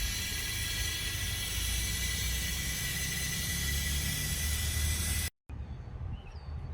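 Steady loud hiss over a low rumble that cuts off suddenly about five seconds in, followed by quieter sound with a few faint chirps.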